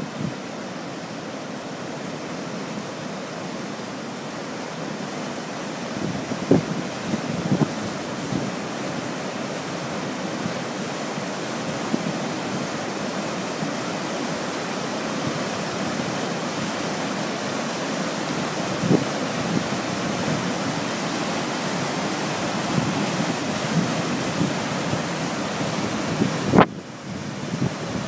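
Rain-swollen river water rushing over a weir and through the arches of a stone bridge, a steady churning of white water. A few brief low thumps of wind on the microphone break in now and then.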